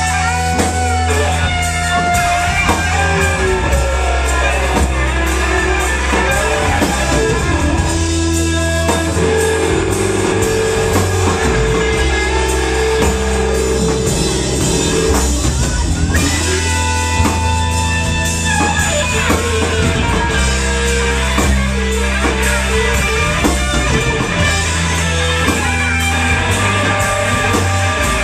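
Live psychedelic rock band playing: long held, heavy bass guitar notes under electric guitars and drums, with gliding, wavering tones higher up.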